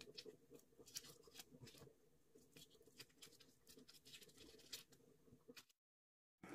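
Faint, irregular small clicks and taps over a low background hum, cut off by a moment of dead silence near the end.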